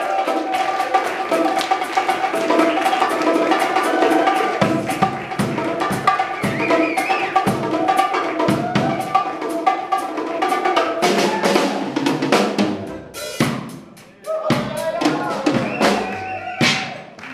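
A live band with the drum kit to the fore: snare, bass drum and rim hits under held electric guitar chords. From about eleven seconds in the drums play sharper, more broken hits, with a short drop-out near fourteen seconds.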